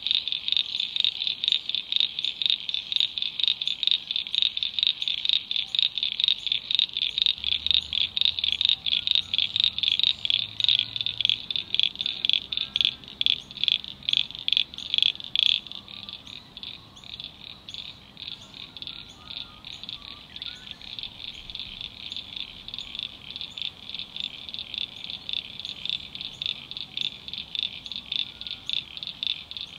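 Chorus of frogs calling: a dense run of rapid, high-pitched pulsed calls at several pulses a second. The loudest caller stops about halfway, leaving a fainter chorus.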